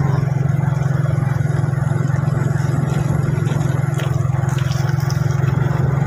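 Motorcycle engine running at a steady pace while riding, heard from the rider's seat, with a haze of wind and road noise over it.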